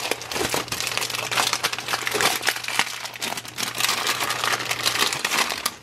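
Clear plastic packaging crinkling and rustling continuously as hands handle and press on bags of craft supplies.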